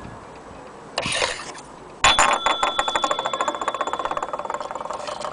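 The antique French mantel clock's strike bell, loose on a wooden table: a short scrape, then a sharp strike about two seconds in. The bell keeps ringing in a steady high tone while it rattles rapidly on its rim, the rattle slowly dying away.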